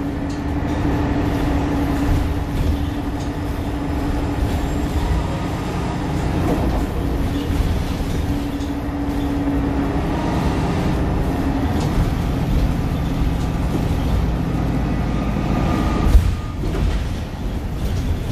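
Cabin noise of a Nova LFS diesel transit bus under way: its Cummins L9 engine and ZF six-speed driveline drone steadily over road rumble, with the engine's hum dropping in pitch about twelve seconds in. A single sharp thump sounds about sixteen seconds in.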